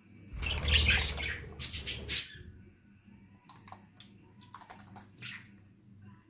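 Red-crowned kakariki parakeets: a loud flutter and scuffle lasting about two seconds as one bird leaves the plate, then several short chirps.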